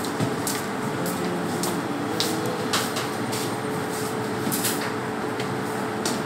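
Steady machine drone with a constant hum, like kitchen ventilation running. Over it come a few light taps and rustles as handfuls of grated cheese are pressed onto bread slices over a plastic tub.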